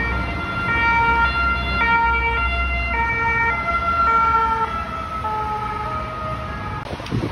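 Ambulance two-tone siren, two notes alternating about every half second, sliding slightly lower in pitch as it passes, with road traffic rumbling underneath. It cuts off near the end.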